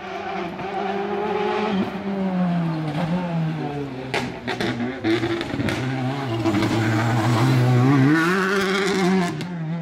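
Rally car engine taking a hairpin: the revs fall as it brakes and changes down, several sharp cracks come around the middle, and the engine note rises again near the end as the car accelerates out of the bend, getting louder as it nears.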